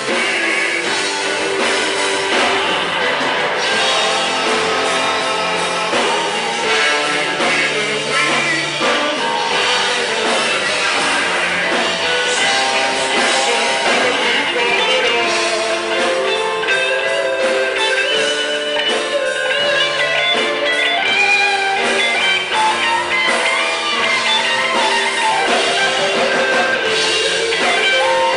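A band playing a rock song: electric guitar, drum kit and singing.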